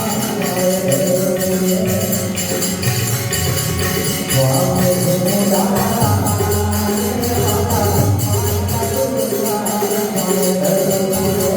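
Music with a steady, evenly repeating jingling percussion beat over a sustained melody line.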